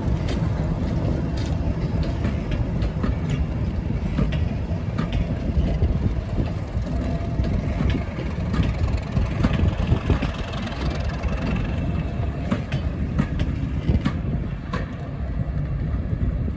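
Class 37 diesel locomotive's English Electric V12 engine working as it pulls a train of coaches away, with the coaches rolling past in a steady rumble and their wheels clicking over rail joints; the engine fades as the locomotive draws off.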